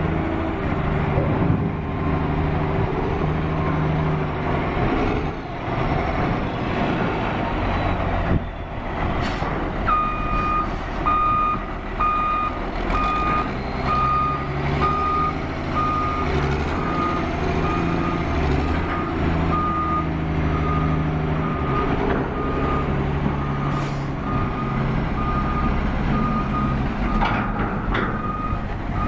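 Heavy diesel construction machine running, its engine note rising and falling with load. About a third of the way in, its reversing alarm starts a steady, evenly spaced single-tone beeping that carries on over the engine.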